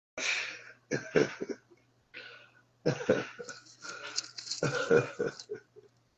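A man laughing hard in several breathy fits with short gaps between them, the longest starting about three seconds in.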